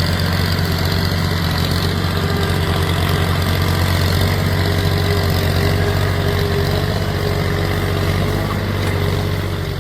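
An engine idling steadily with an even low pulse, easing off slightly near the end.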